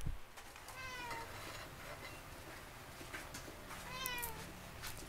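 A cat meowing twice, each meow about half a second long and sliding down in pitch at its end, about three seconds apart. A dull thump at the very start.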